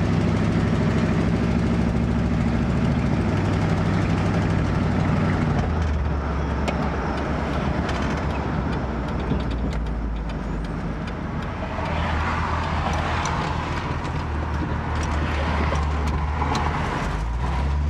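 1967 Buick Riviera's 430 V8 running under way, heard from inside the cabin with road noise. The engine note drops about six seconds in and picks up again near the end.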